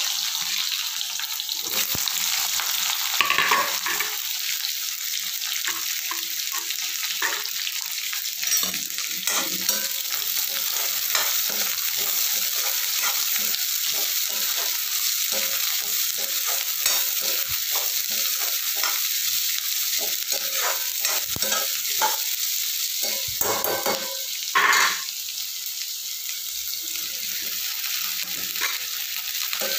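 Sliced onions sizzling as they fry in hot oil in an aluminium kadhai, with a metal spoon scraping and clinking against the pan as they are stirred. A brief louder burst of clatter comes near the end.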